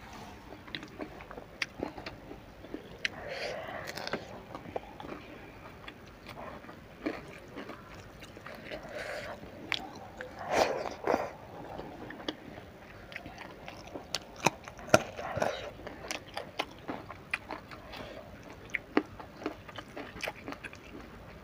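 Close-miked eating sounds: wet chewing, lip smacks and sharp mouth clicks as rice and curry are eaten by hand.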